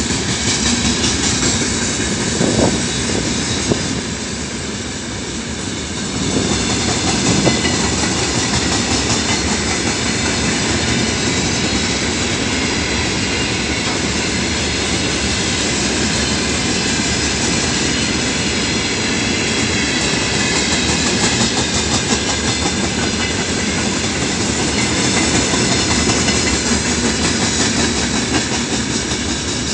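Freight train of open-top gondola wagons rolling past at close range: a steady rumble of steel wheels on rail, with a running clatter of wheels over the track.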